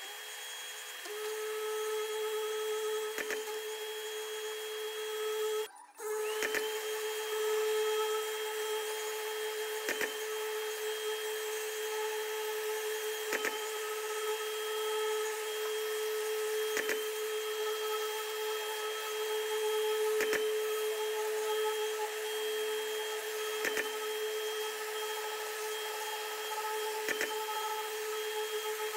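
Electric random orbital sander running at a steady whine while sanding a car's painted bodywork, with a short click about every three and a half seconds. The sound cuts out briefly about six seconds in.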